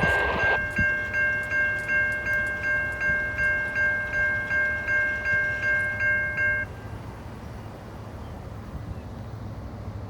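Electronic chime dinging in a fast, even repeat, about two and a half dings a second, then cutting off suddenly about six and a half seconds in, leaving a low steady rumble.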